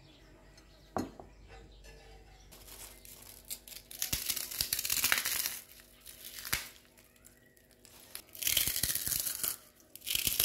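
Crinkling and tearing noise in three bursts, with a single knock about a second in and a few clicks between the bursts.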